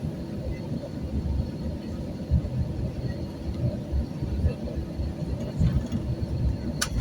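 Low, uneven rumble inside an airliner cabin as the plane rolls along the ground, with a faint steady high whine and a sharp click near the end.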